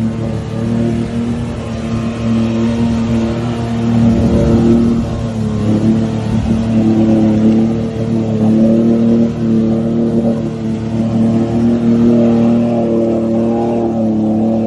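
Off-road vehicle's engine running hard at high revs under load as it ploughs through deep mud and water. The pitch holds fairly steady, with small rises and dips.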